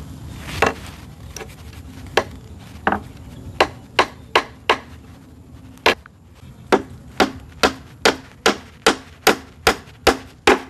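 Repeated sharp strikes of a tool on wood. They are spaced out at first, then settle into a steady run of about two to three strikes a second through the second half.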